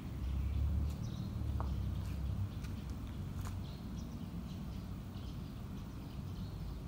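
Outdoor ambience: small birds chirping faintly now and then over a low rumble that is heaviest in the first two and a half seconds.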